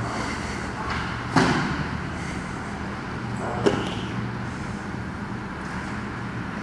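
Two sharp thuds about two seconds apart over a steady low hum: grapplers' bodies hitting a gym mat during no-gi grappling.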